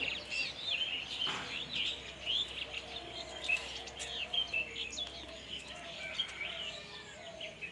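Birds chirping: many short, quick calls overlapping one another.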